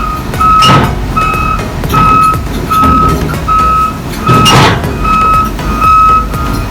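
Heavy equipment's backup alarm beeping steadily, about four beeps every three seconds, over a diesel engine's rumble. Two short hisses cut in, one about a second in and one past the middle.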